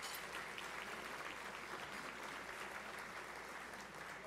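Audience applauding: a dense, steady patter of clapping that eases off slightly near the end.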